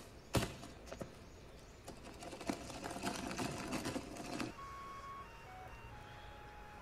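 Faint rattling of a small wheeled suitcase being pulled over pavement, with a single click about half a second in and the rattle lasting from about two to four and a half seconds in. After that come a few faint held tones, each at a different pitch.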